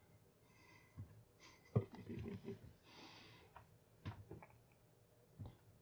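A cardboard box with paper slips inside being handled and shaken: a few soft knocks and a brief rustle about three seconds in.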